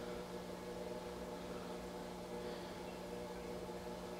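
A steady, low electrical hum made up of several constant tones, with no clicks or knocks over it.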